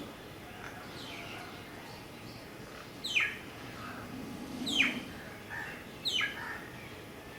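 Bird calls: three sharp, high chirps that each sweep steeply downward in pitch, about a second and a half apart, with fainter short calls between them.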